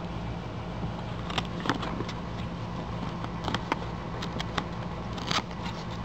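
Cardboard box being opened by hand: scattered sharp clicks and short scrapes as its flap and tab are worked loose, over a steady low hum.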